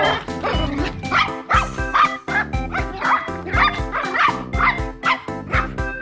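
Two toy poodles play-fighting, giving short yips and growls, over background music with a steady beat.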